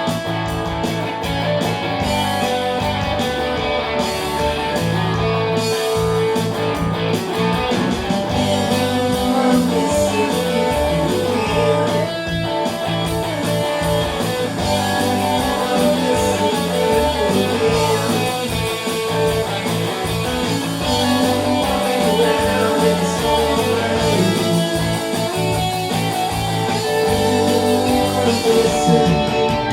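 Music led by guitar, playing steadily.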